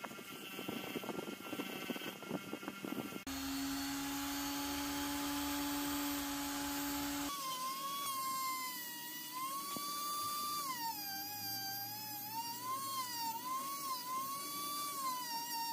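Bench grinder's brass wire wheel brushing rust off a revolver cylinder. After a cut comes a steady hum, then a high-speed rotary tool with a small abrasive disc gives a high whine whose pitch wavers up and down as it bears on the steel.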